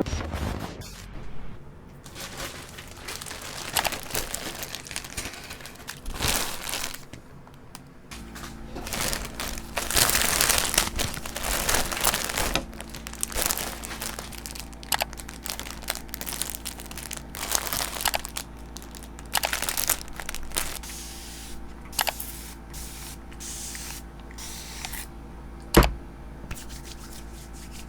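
Packaging crinkling and rustling as it is handled and torn open by hand, in irregular bursts. A steady low hum comes in about eight seconds in, and there is one sharp knock near the end.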